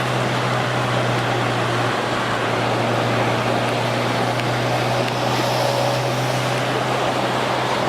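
Steady roar of wind and road noise from a car in motion, over a constant low hum, with no change in pitch or level.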